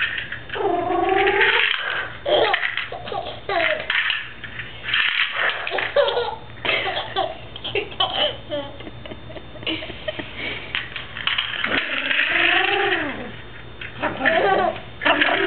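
Baby laughing in a string of bursts, with short pauses between them.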